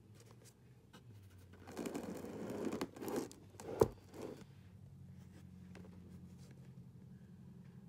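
Scratchy rubbing and scraping for about two seconds, then a sharp click and one more short scrape: handling noise on the phone as it is moved around the model.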